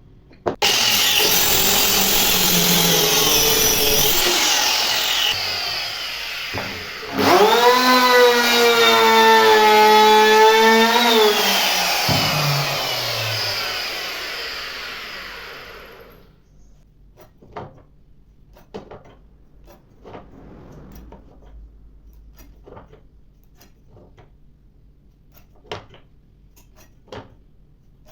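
A high-speed electric power tool's motor working on wood, loud and noisy. About seven seconds in, a motor spins up suddenly to a steady whine, runs for about four seconds and winds down. After that there are only scattered light taps and clicks of handling.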